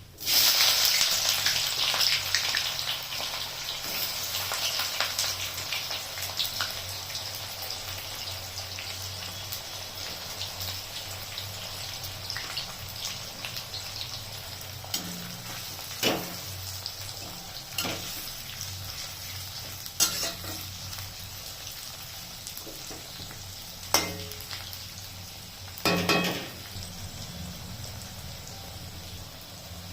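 Food dropped into hot oil in a cooking pan, starting with a sudden loud sizzle that settles into steady frying. A spoon knocks against the pan several times in the second half, as the curry is stirred.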